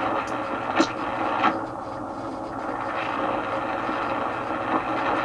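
Radio Shack DX-302 shortwave receiver's speaker hissing with steady band noise and static as it is tuned up the dial in AM mode, with a couple of short clicks near the start.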